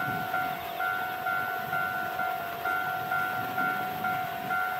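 Electronic warning bell ringing in a steady repeating pattern, about two rings a second. Under it is the low rumble of the approaching DE15 diesel-hauled train.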